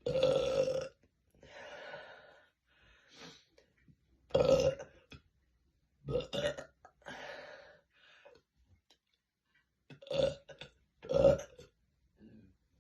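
A woman burping again and again, about eight loud burps of varying length with short pauses between them.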